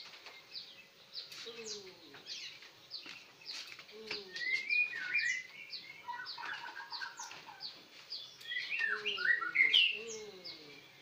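Small birds chirping in a rapid run of short high chirps, busier and louder twittering about four to six seconds in and again near the end, with a few low falling coos mixed in.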